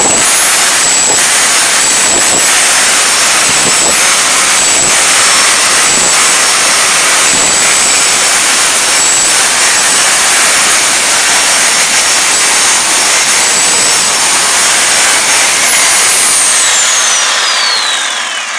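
Bauer 10.5 amp rotary hammer chiseling concrete, a loud continuous hammering racket over a high motor whine that dips briefly now and then. Near the end the trigger is let go and the whine falls in pitch as the motor spins down.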